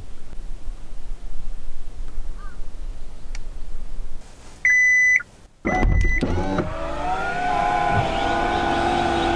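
A car's power tailgate being worked from the key fob: two electronic warning beeps about a second apart, then the tailgate motor running with a steady whine for a few seconds, its pitch dropping as it stops. A steady hiss of rain comes first.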